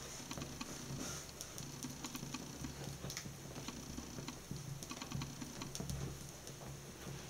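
A burning slip-on ballerina shoe crackling, with small irregular pops and ticks as its flames burn, over a faint steady hum.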